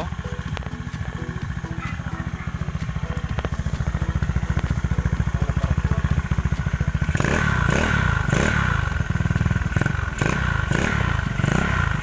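Yamaha Mio scooter's single-cylinder four-stroke engine running through an aftermarket Replica Pro exhaust: a steady fast putter at idle, then revved in a series of short throttle blips from about seven seconds in.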